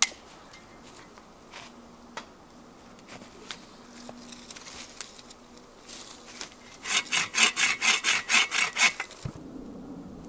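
Hand saw cutting wood: a quick, even run of rasping strokes, about six a second, for some two seconds near the end, after a sharp knock at the very start and a few scattered clicks.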